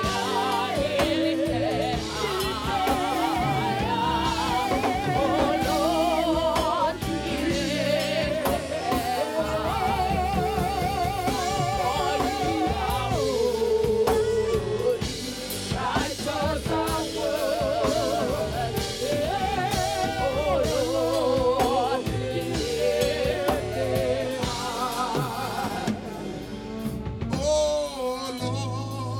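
Worship music: a voice singing with wide vibrato over a band with drums and sustained low notes.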